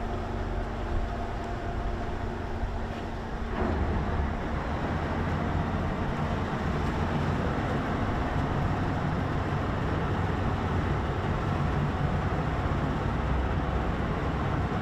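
A ferry's engines and machinery give a steady low rumble. About three and a half seconds in, a steady hum drops out and the rumble gets louder and rougher.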